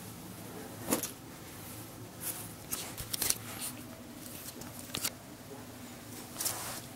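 Intermittent soft rustling and handling noises, about half a dozen short scrapes and rustles, over a faint steady low hum.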